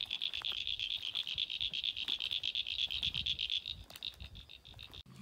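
Frogs calling in a high-pitched trill of rapid, evenly spaced pulses that runs on steadily, thins out near the end and cuts off suddenly.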